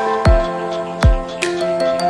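Background electronic music with a deep bass drum beat and sustained synth notes.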